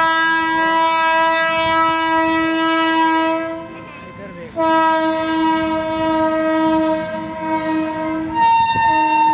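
Indian Railways electric locomotive's horn blowing long, steady blasts as the train passes, with a short break about four seconds in and another brief gap near the end.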